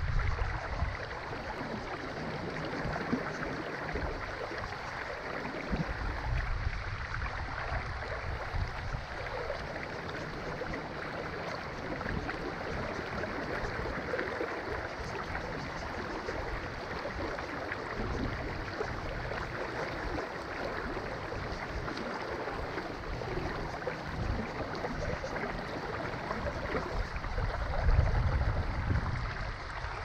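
Creek water flowing in a steady rush, with gusts of wind buffeting the microphone every so often as low rumbles.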